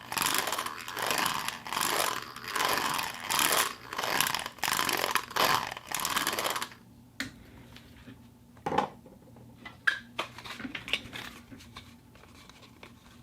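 Plastic cup being handled for foley: a run of about ten loud crackling, rasping strokes in quick succession, then only a few faint clicks and taps for the second half.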